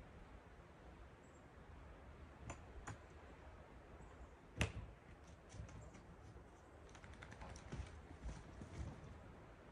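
Near silence broken by faint, scattered clicks and knocks from a travel trailer's door and steps as someone comes out. The sharpest knock comes about halfway through, and a run of faint light ticks follows near the end.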